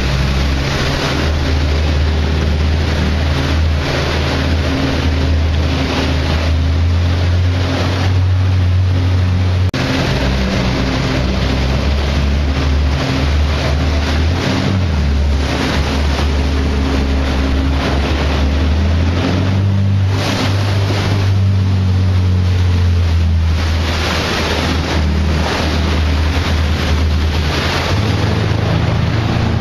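Marine engine running hard with a steady low drone whose pitch steps up or down several times, over rushing water spray and wind on the microphone.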